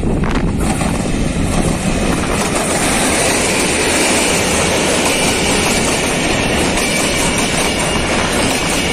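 Diesel-hauled passenger train passing: a loud, steady rush and clatter of coach wheels running over the rails. A thin high ring sets in about three seconds in.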